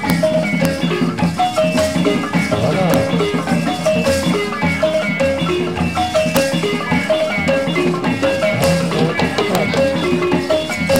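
Live balafon music: a wooden xylophone playing a fast, repeating melody of short notes over drums and shaken rattles, accompanying a dance.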